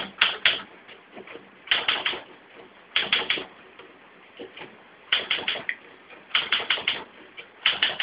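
Manual typewriter keys striking in quick groups of three or four clacks, a group about every second and a half, with fainter single clicks in between.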